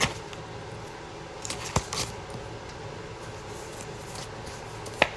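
Quiet steady room tone, broken by a few short clicks and taps: one at the start, a small cluster about a second and a half in, and one near the end.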